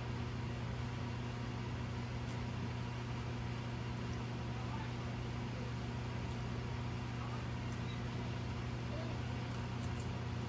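A steady low machine hum with an even hiss above it, and a few faint clicks about two seconds in and near the end.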